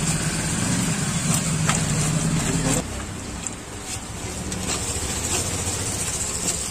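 Hand squishing and mashing the potato and spice filling for gupchup in a steel pot, with faint soft ticks, over a steady low motor hum that drops in level about three seconds in.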